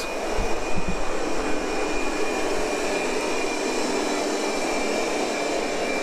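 Ultenic TS1 robot vacuum cleaning carpet: its suction fan running with a steady hum and a thin, steady high whine.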